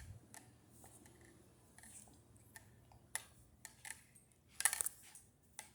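Faint, scattered light clicks and taps, with a short rustle about four and a half seconds in.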